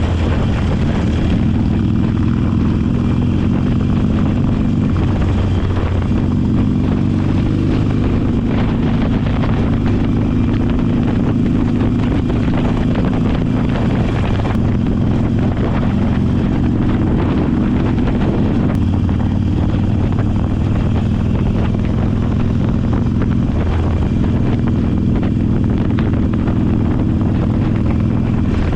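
Harley-Davidson motorcycle engine running steadily on the road, its note shifting slightly in pitch a few times.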